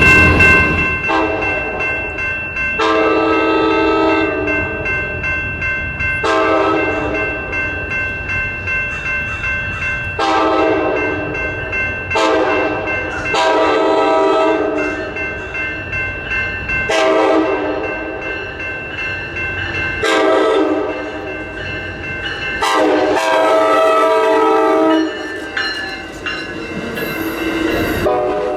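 Locomotive horn sounded again and again, about a dozen blasts of one to two seconds each, over steady high ringing and the noise of the passing train.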